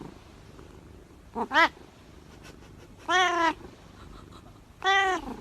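A domestic cat meowing three times, about a second and a half apart: a short call, then two longer drawn-out meows, each rising and falling in pitch.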